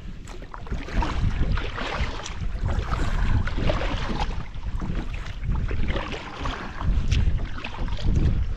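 Wind buffeting the microphone in an uneven low rumble, with water splashing and lapping around a kayak.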